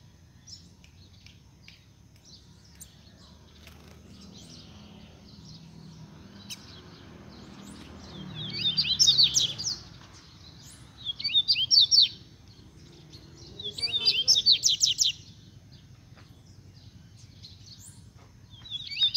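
Double-collared seedeater (coleirinho) singing: scattered short chirps at first, then, from about eight seconds in, three loud bursts of fast, high, twittering song, each a second or so long and a couple of seconds apart.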